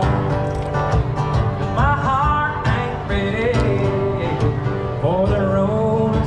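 Live country music: a singer with guitar backing, the sung phrases coming in and out over steady strumming.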